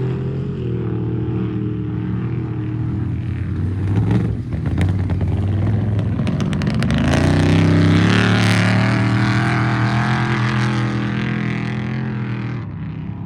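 Off-road race truck engine running hard, its pitch shifting in steps, with a stretch of clatter about four to seven seconds in. It is loudest around eight seconds in and eases off near the end.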